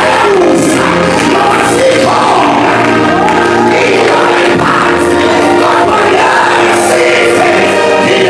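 Gospel worship song: a group of voices singing together over instrumental accompaniment, loud and steady.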